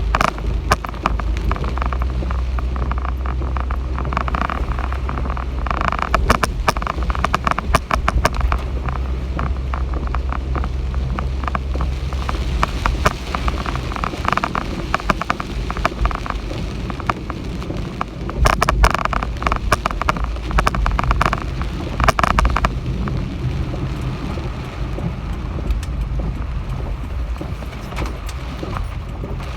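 Heavy typhoon rain pelting a surface, with dense sharp patter and clicks of drops over a rushing noise. A low steady hum runs under it and fades a few seconds before the end.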